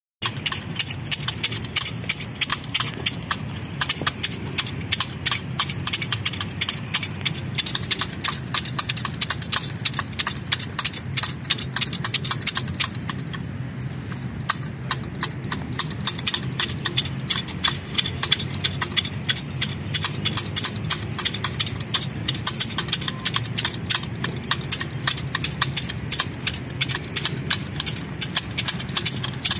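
Two pairs of manual hedge shears snipping a hedge top, the blades clicking shut in a rapid, uneven clatter of several cuts a second, over a steady low hum.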